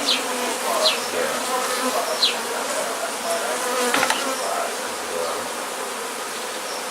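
A mass of honey bees buzzing, a dense wavering hum from the disturbed colony being removed from its hive. A few short, high falling chirps come in the first couple of seconds, and a sharp click about four seconds in.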